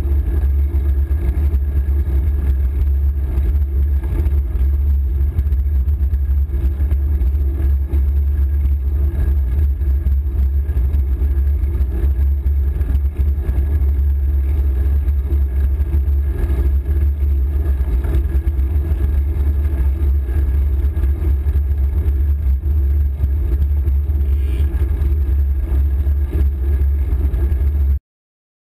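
Steady wind rumble on an action camera's microphone while riding a bicycle, a deep continuous roar with a faint steady hum over it. It cuts off suddenly near the end.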